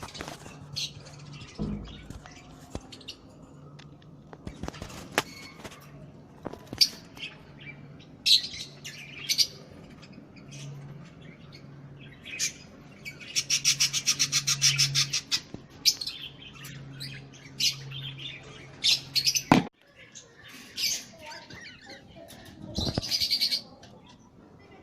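Budgerigars chirping and chattering in short, high calls, with a fast run of rapidly repeated notes in the middle. A steady low hum runs underneath and cuts off about two-thirds of the way through.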